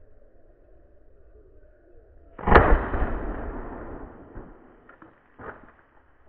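A single shot from a Bora 12-gauge semi-automatic shotgun firing a slug: one sharp, loud crack about two and a half seconds in, followed by a rumbling echo that fades over about two seconds. A fainter thump follows near the end.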